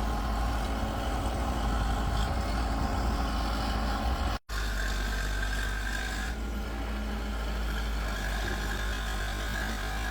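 A vehicle engine running steadily, with a brief complete break about four and a half seconds in, after which the engine keeps running with a steady higher whine.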